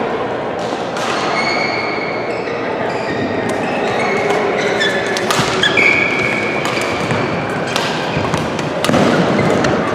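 Badminton rackets striking a shuttlecock in a doubles rally: sharp, irregular hits, with short high squeaks of court shoes on the floor between them, over the steady din of a busy sports hall.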